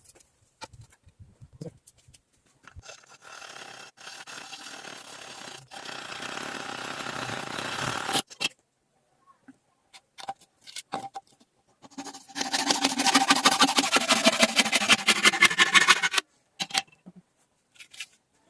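Scraping and rasping of a hand tool working a broom part, in two stretches. First a scratchy rubbing grows louder for about five seconds. Then, after a few knocks and clicks, comes a louder, rapid rhythmic scraping for about four seconds.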